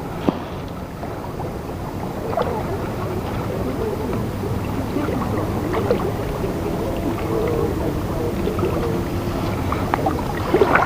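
Water splashing and sloshing, with a sharp knock just after the start.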